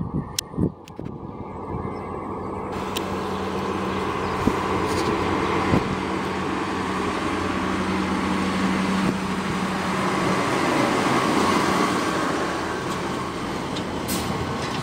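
Case IH tractor towing a digestate tanker approaches and passes: a steady diesel engine note that grows louder over the first ten seconds or so, with a few sharp clanks from the rig as it goes by near the end.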